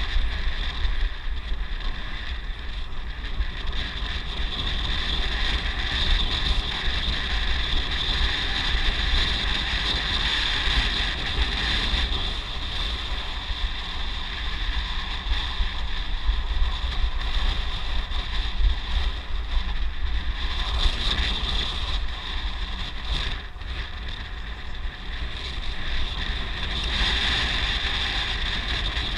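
Wind buffeting the microphone during a road ride: a constant low rumble, with a steady high-pitched hum on top that fades for a few seconds past the middle and returns near the end.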